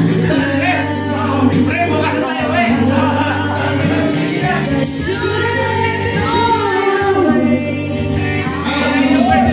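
A woman singing karaoke into a handheld microphone over a backing track with held bass notes.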